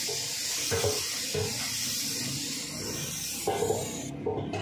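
Paint spray hissing steadily as a sheet-metal box is sprayed black, with a few light knocks; the hiss cuts off near the end.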